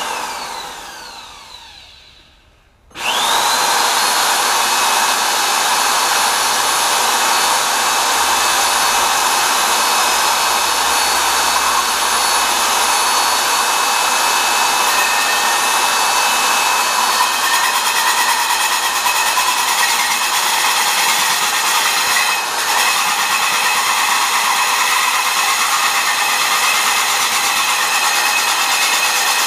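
Cordless drill with a hole saw boring into a firebrick. A short run at the start winds down with a falling whine. About three seconds in the drill starts again with a rising whine and then runs steadily while cutting, with one brief dip late on.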